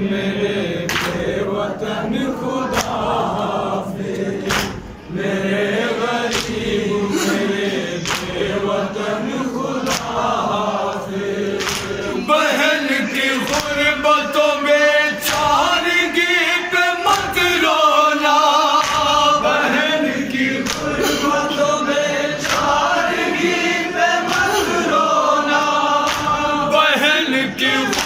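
Male voices chanting a noha, a Shia lament, in unison, with open hands striking chests in matam as regular sharp slaps. About twelve seconds in the lead voices grow louder and fuller.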